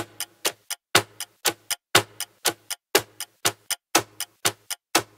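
Countdown timer sound effect: sharp clock-like ticks, about four a second, with a louder tick and low thump on each whole second as the count steps down.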